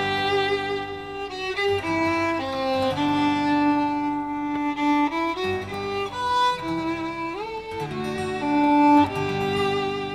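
Violin playing a slow melody of long held notes over a lower sustained accompaniment.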